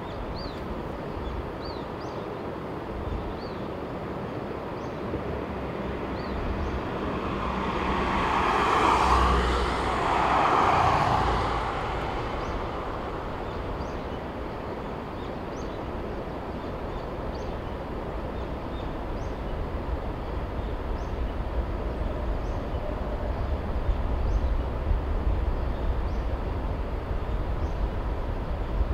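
Distant rumble of a JR 383 series electric train running through the valley, growing louder in the last third. About a third of the way in a louder rushing swell rises and falls twice. Faint high chirps recur about once a second.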